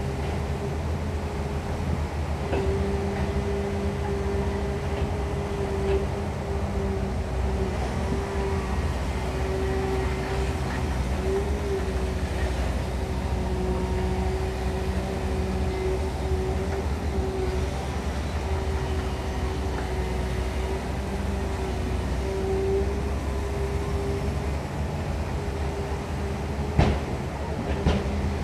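Caterpillar 320 excavator's diesel engine running steadily under working load while digging mud, a low drone with a steady whine on top. A single sharp knock near the end.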